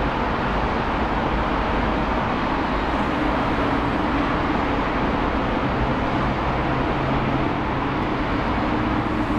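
Distant Boeing 757 jet engines running steadily as the airliner rolls along the runway, a constant broad noise with a faint low hum underneath.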